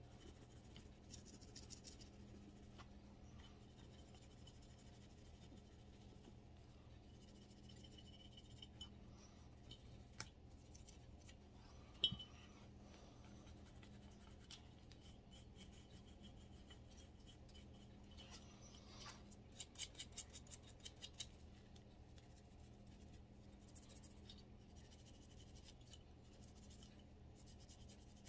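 Faint scrubbing and scratching of a cleaning brush worked over a pistol slide, in short strokes, with a few light clicks of tools against the metal, one sharper click about halfway through and a quick run of them a little later.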